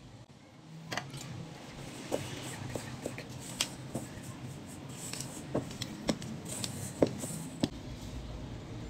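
Irregular light clinks and taps of a metal spoon and a tin can against a stainless steel mixing bowl while a batter is mixed, starting about a second in.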